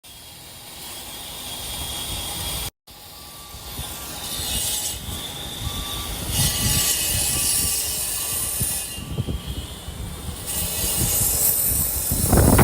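Steady rumble and hiss of a moving vehicle, growing louder, broken by a sudden brief dropout about three seconds in, with a faint row of short repeated tones in the middle.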